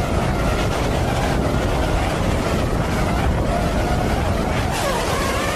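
FPV drone's motors and propellers whining in flight, their pitch wavering with the throttle and dipping then rising again near the end, over wind rushing on the microphone.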